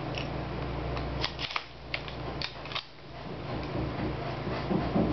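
Scattered short metallic clicks from a King Arms M4 gas blowback airsoft rifle being handled and readied to fire, over a steady low hum.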